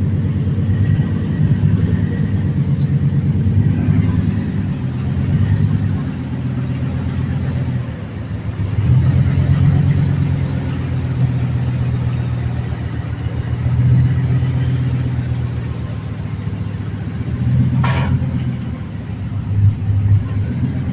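Ford F-150 V8 engine running rough, its level rising and falling, with a brief click near the end. It is misfiring: no ignition current reaches cylinders 3 and 7.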